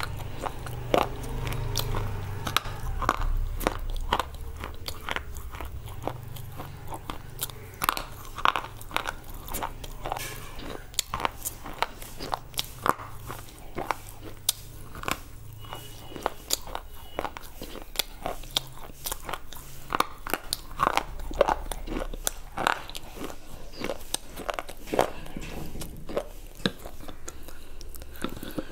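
Close-miked crunching and chewing of a white slate bar: many sharp, irregular crunches several times a second as the brittle bar is bitten and ground between the teeth.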